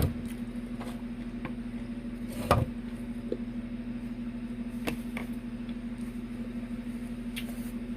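A person eating oxtail: chewing and mouth sounds with scattered short clicks and knocks, a louder knock about two and a half seconds in, over a steady low hum.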